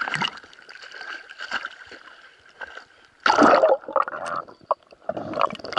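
Sea water sloshing and gurgling around a camera bobbing at the surface, with loud rushing splashes about three seconds in and again near the end as it dips under and comes up.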